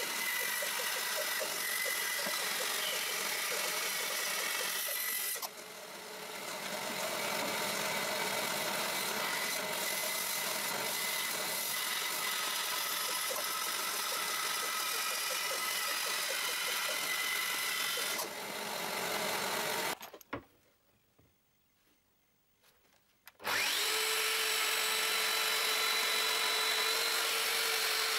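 Band saw running and cutting an oak board for about twenty seconds, with a brief dip in level about five seconds in, then stopping. After a few seconds of near silence a Festool Domino joiner starts and runs steadily with a hum.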